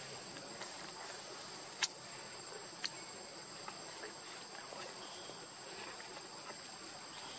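Forest insects droning steadily at a high pitch, with two sharp clicks about a second apart near the start.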